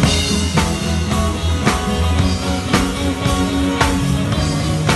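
Live band playing a pop-rock song, heard close to the drum kit: snare and cymbal hits on a steady beat about twice a second, over bass and guitar.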